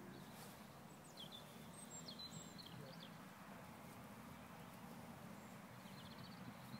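Quiet outdoor background noise with a few faint, high bird chirps, mostly between one and three seconds in and again near the end.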